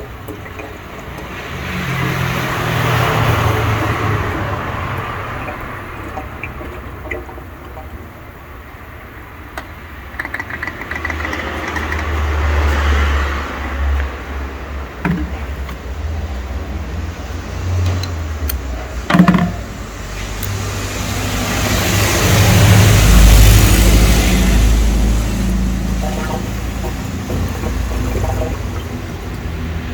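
Car engine noise with a low rumble that swells up and dies back three times, and one sharp knock or click about two-thirds of the way through.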